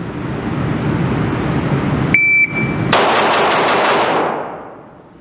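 A shot timer beeps once. Half a second later a Hayes Custom 2011 pistol fires a fast string of about six shots, about five a second. The shots echo in an indoor range.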